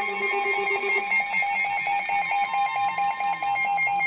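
Emergency alert attention tone: a steady high-pitched two-tone sound with a rapid fluttering beat, announcing a special marine warning. A lower pulsing tone underneath stops about a second in.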